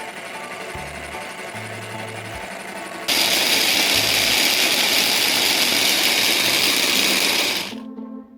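Blender motor whirring over background music with a slow bass line. About three seconds in it becomes a much louder, hissing whir, which stops shortly before the end.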